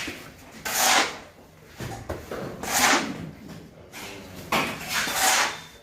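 A series of loud noisy whooshing swells, about one every two seconds, over a low background rumble, cutting off abruptly at the end.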